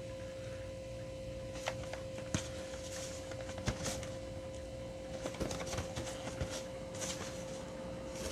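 Faint rustling, crinkling and light taps from handling a Funko Pop's cardboard box and its plastic insert, over a steady electrical hum.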